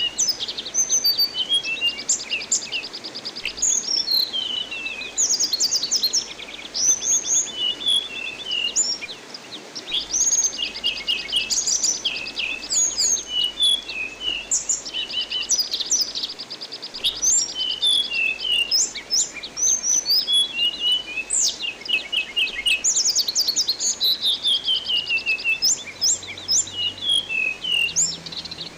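An anis binbin thrush singing a long, varied song of fast trills, rapid repeated notes and quick rising and falling whistles, with only brief pauses, over a faint steady rush of water.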